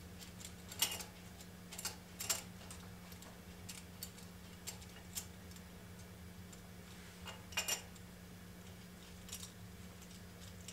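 Light metallic clicks and ticks of a banjo bolt, thrust washers and breather banjo fitting being handled and threaded by hand into a Harley-Davidson Twin Cam cylinder head. A few sharper clicks stand out about a second in, at about two seconds, and at about seven and a half seconds.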